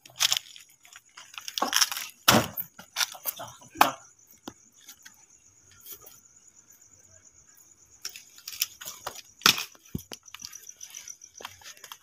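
A cricket trilling steadily at a high pitch, over irregular crunching and rustling of footsteps on rubble and through leafy plants. The steps come thickest in the first four seconds and again from about eight seconds in, with a quieter stretch between.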